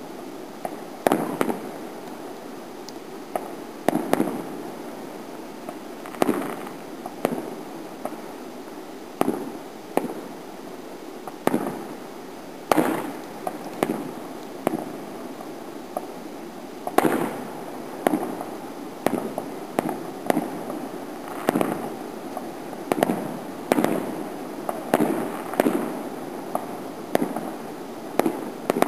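Fireworks going off: a run of sharp bangs, each trailing off in a rolling echo, coming every second or two and closer together near the end.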